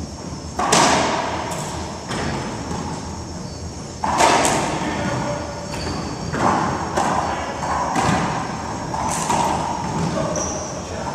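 Racquetball doubles rally: the hollow rubber ball is struck by racquets and smacks off the court walls, each hit echoing in the enclosed court. The two loudest hits come about a second in and about four seconds in, followed by several lighter ones.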